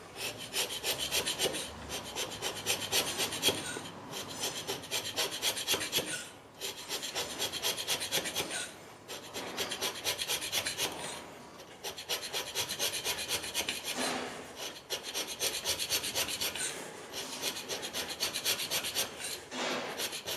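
Hand scraper with a carbide-tipped, straight-edged blade scraping a machine-tool guideway in rapid strokes, about three a second, in runs of a few seconds with short pauses between them: the flattening of a worn slideway, each pass cutting away only a micron or two.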